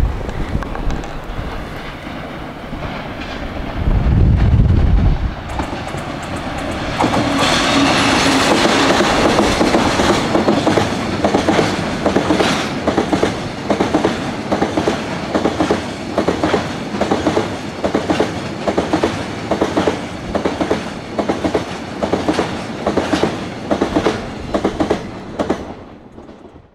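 Freight train passing: a loud rush of wheels and wagons, then a steady clickety-clack of wagon wheels over rail joints that fades out near the end. A gust of wind buffets the microphone about four seconds in.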